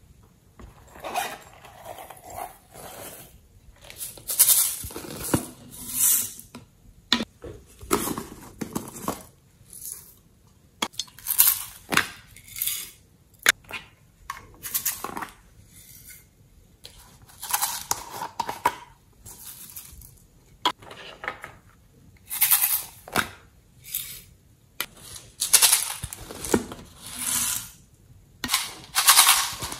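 Glitter and sequins shaken and poured from small plastic containers onto slime in a glass dish: repeated short bursts of dry rattling and clinking, with a few sharp clicks as the containers are handled.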